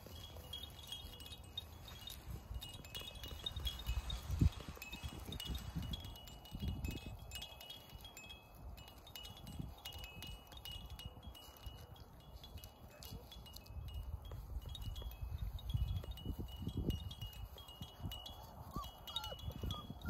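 A wind chime tinkling steadily with high, clear ringing notes, over wind rumbling on the microphone, with a sharp bump about four and a half seconds in.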